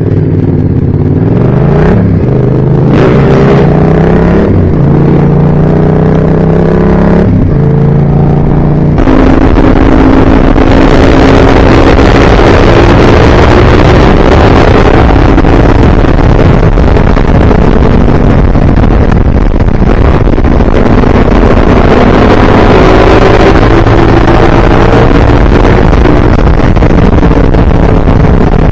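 Vehicle engine accelerating through several gear changes, the revs climbing and dropping about four times in the first nine seconds. It then runs steadily at cruising speed.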